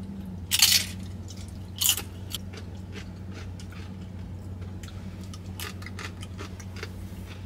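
Tortilla chip with queso bitten into with a loud crunch, a second crunch about a second later, then chewing with many small, quieter crunches.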